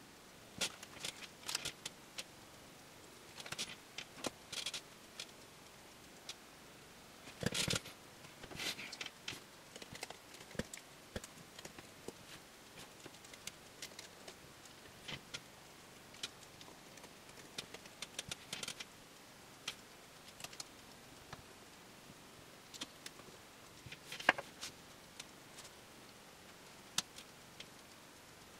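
Scattered small clicks, taps and knocks from hands handling an opened MacBook Pro laptop's aluminium body and small parts on a wooden table. There is a louder cluster of knocks about a quarter of the way in and a single sharp knock about a second before the last quarter.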